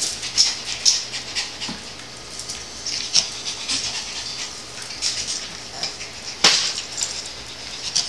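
A Pomeranian's claws clicking and skittering on a tile floor as she darts about at play, in quick irregular taps, with one sharp, louder knock about six and a half seconds in.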